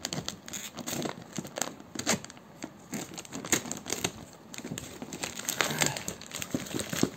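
Plastic courier mailer bag crinkling and tearing as hands rip it open and pull it off a cardboard shoebox, a run of irregular crackles and rustles.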